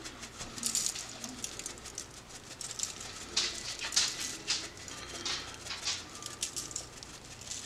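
Black pepper being dispensed over a pan of diced potatoes: irregular crisp, scratchy clicks and rattles, about one or two a second.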